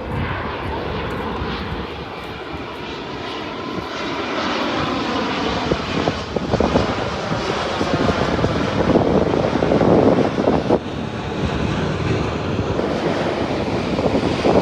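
Airliner engines on landing approach passing close by, a steady rushing jet noise that grows louder and peaks about two-thirds of the way through.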